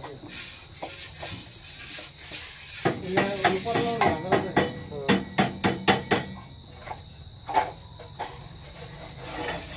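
Fly ash brick machine being worked by hand, with a quick run of sharp knocks about three a second a few seconds in and one more loud knock near the end, over a faint steady high tone.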